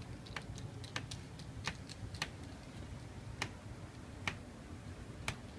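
Small screwdriver driving the bottom-case screws back into a Unibody MacBook Pro, giving about ten light, irregularly spaced clicks.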